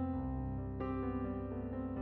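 Slow background piano music with sustained notes; a new chord comes in about a second in.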